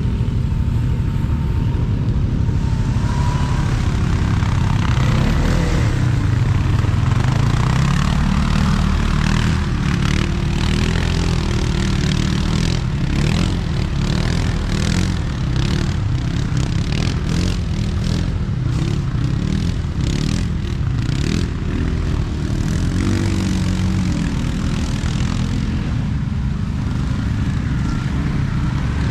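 ATV (quad bike) engine running under changing throttle, its pitch wavering up and down, with a stretch of short rattling knocks around the middle.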